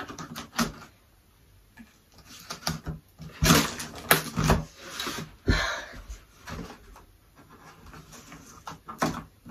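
Scissors cutting and scraping along the packing tape of a cardboard box, with the taped cardboard flaps being pulled and torn open in irregular scrapes, loudest a few seconds in.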